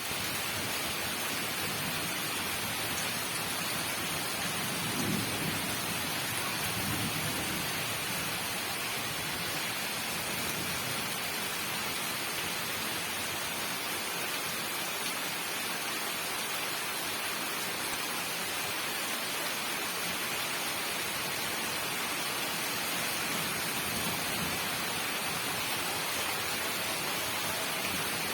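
Heavy rain pouring steadily, a dense even hiss of a downpour, with a slight low swell about five to seven seconds in.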